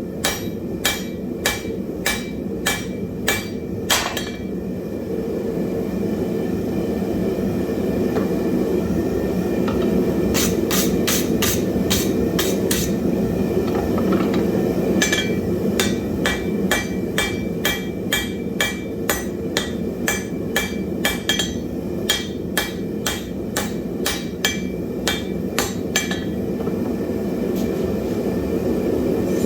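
Hand hammer striking hot wrought iron on an anvil in runs of about two blows a second. The blows pause from about four to ten seconds in and again near the end, over a steady low rushing noise.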